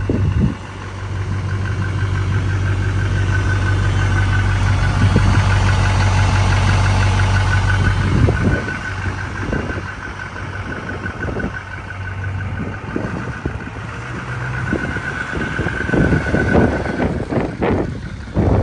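2004 Chevrolet 2500 HD pickup's V8 engine running steadily while the truck is driven slowly, with a pulsing high whine above the engine note.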